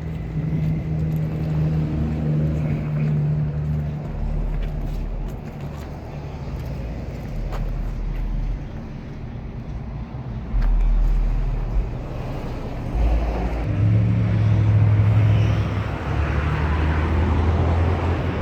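Classic cars and hot rods running slowly past on the street, a low engine rumble that shifts in pitch as different cars go by, louder a little past halfway and toward the end.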